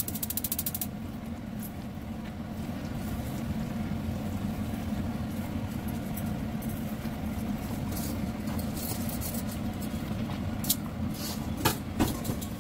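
A steady low machine hum, with a few sharp knocks near the end as a wooden spatula stirs rice noodles in an aluminium pot. A fast high ticking stops about a second in.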